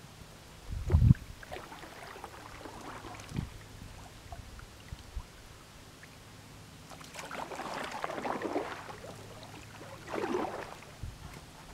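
A canoe being handled on the water: a hard knock against the hull about a second in and a lighter one a couple of seconds later, then two swishing splashes of paddle strokes through the water near the end.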